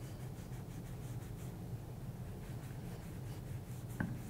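Soft foam sponge rubbing over the surface of a bone-dry clay pot coated with terra sigillata, burnishing it in faint repeated strokes over a low steady hum. A short light knock comes about four seconds in.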